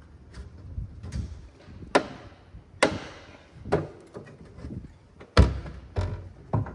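A new CV axle being pushed and knocked into place on a Polaris Ranger 700's front end: about six separate clunks and thuds, the loudest about two-thirds of the way through, one near the middle ringing on briefly.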